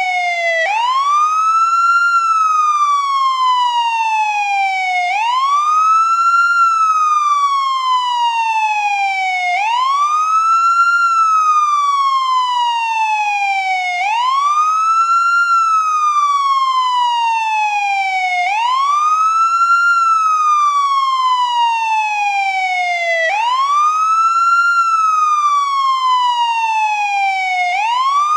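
Ambulance siren on the wail setting: one tone that sweeps quickly up and then slowly back down, repeating about every four and a half seconds.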